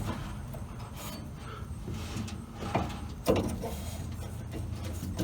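Handling noises from fitting a brake light switch into a pedal bracket: a few short clicks and knocks and some rubbing, over a low steady hum.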